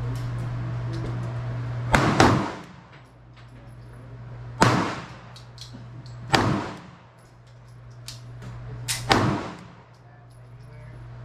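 9mm pistol gunshots, about six fired at uneven intervals, two of them in quick pairs, each with a short echoing tail. A steady low hum runs underneath.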